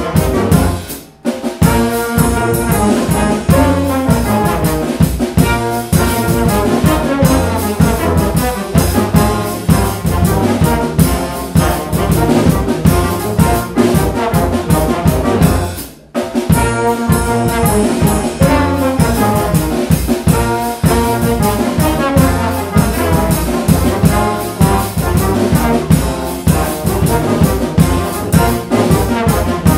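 Brass band of trumpets, trombones and tuba with a drum kit playing a busy rhythmic ensemble piece. The whole band stops together for a moment about a second in, again around the middle, and just before the end.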